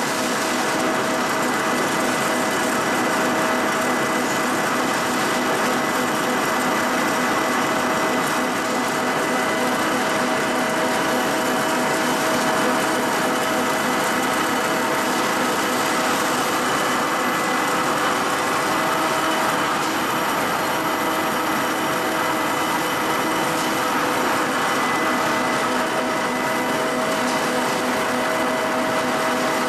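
Cold-rolled ribbed steel bar production line machinery running: a steady mechanical hum and whine with a few fixed tones over an even rush of noise.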